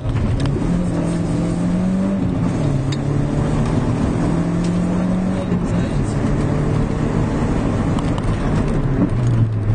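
Peugeot rally car's engine heard from inside the cabin, driven hard on a gravel stage, its pitch stepping up and down several times over steady road noise.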